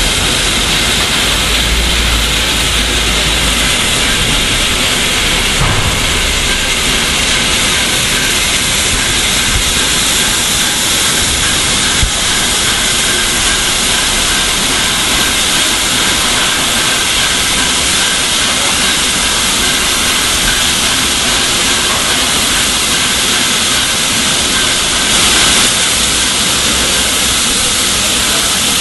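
LNER A4 Pacific steam locomotive No. 4464 Bittern, standing with steam hissing steadily. The hiss swells briefly near the end.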